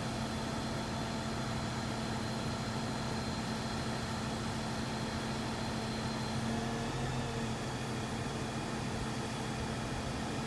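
Mobile crane's heavy diesel engine running steadily under load as it holds and lowers an HVAC unit onto a roof: an even, unbroken drone.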